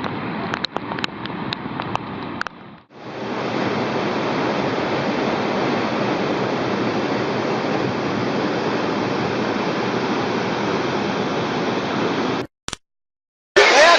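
Floodwater rushing in a flash-flood torrent, as a steady, even rush of water. A few sharp clicks come about a second in, and the sound breaks off briefly near the end.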